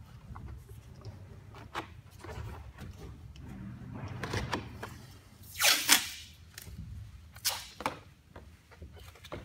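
Adhesive tape pulled off its roll in a loud rip lasting about half a second, a little past the middle, then a shorter rip about a second and a half later, among small knocks and rustles of handling.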